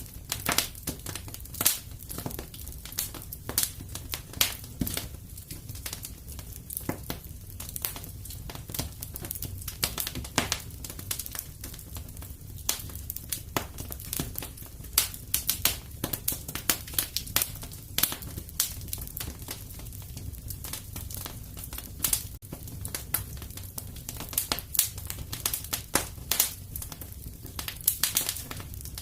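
Wood fire crackling steadily in a fireplace: dense, irregular sharp pops and snaps over a low, even rumble of the flames.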